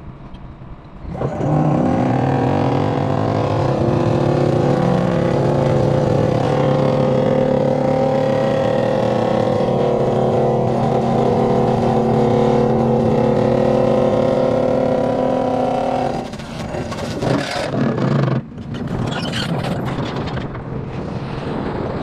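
Excavator-mounted hydraulic vibratory pile driver running with a loud, steady, even hum as it drives a steel pipe pile, over the excavator's diesel engine. The hum starts about a second in. Past the three-quarter mark it breaks off, and a quieter, different machine hum follows.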